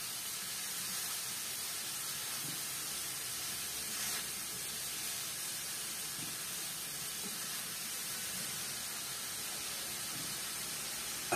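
Pork ribs, onion and carrot frying in a pan, a steady sizzle with no let-up.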